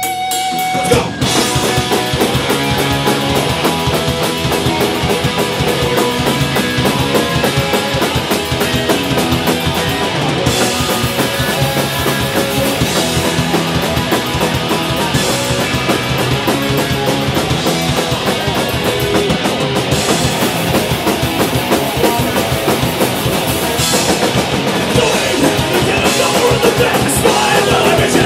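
Live punk rock band playing loud: electric guitars, bass guitar and a pounding drum kit, kicking in hard about a second in.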